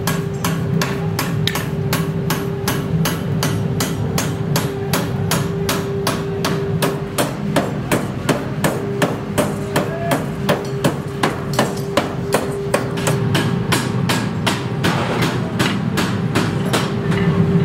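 Hammer blows on metal in a forge, evenly spaced at about three a second, over a steady hum of machinery.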